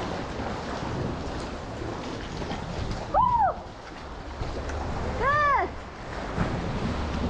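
Ocean water sloshing with wind noise on the microphone. Two short rising-and-falling calls stand out, about two seconds apart, one around three seconds in and one around five seconds in.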